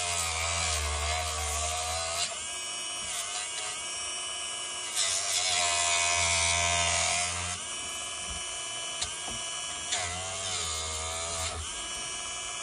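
Dremel rotary tool running at high speed and cutting rubber that has gone hard with age. Its whine dips in pitch each time it bears down, and it grows louder and hissier for a couple of seconds about five seconds in.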